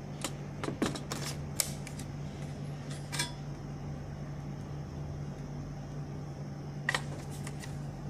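Sharp plastic and metal clicks as a lock is released and the hard-drive carrier of a Dell OptiPlex 980 desktop is lifted out of its chassis: several in the first two seconds, another about three seconds in and a pair near the end, over a steady low hum.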